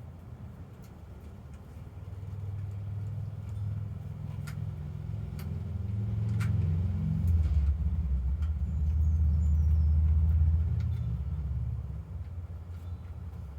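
A motor vehicle passing by: a low engine and road rumble that builds, is loudest midway, and fades away near the end. A few faint clicks sound over it.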